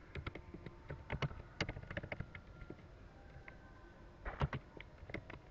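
Typing on a computer keyboard: irregular key clicks, with a quick cluster of keystrokes about four seconds in.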